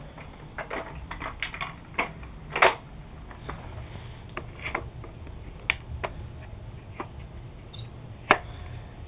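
Irregular rustles, taps and clicks of a cloth shake-out vacuum bag being handled and shaken over a sheet of paper, with a couple of sharper knocks.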